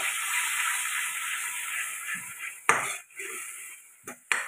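Mustard paste sizzling and being stirred in a metal kadai just after a little water goes in, the sizzle dying away over about three seconds. A metal spoon knocks sharply on the pan about two-thirds through, then clinks a few times near the end.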